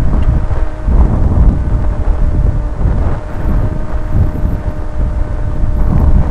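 Wind buffeting the microphone in uneven gusts, a heavy low rumble, with a faint steady hum underneath.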